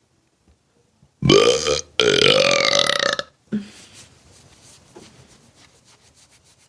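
A woman belching loudly twice in quick succession, starting about a second in. The second belch is long and pitched, lasting over a second.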